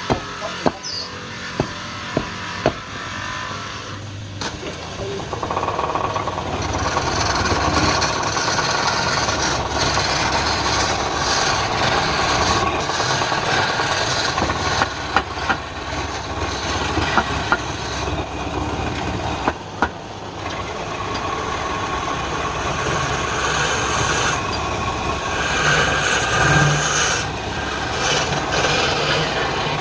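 A few sharp knocks, then a woodworking machine's motor starts a few seconds in and runs steadily, with a dense scraping noise over it and scattered clicks.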